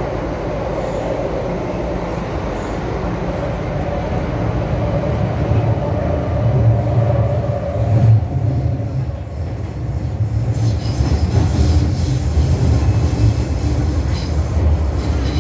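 MTR M-Train metro car running through a tunnel, heard from inside the passenger car: a continuous low rumble of wheels on rail, swelling a little around the middle.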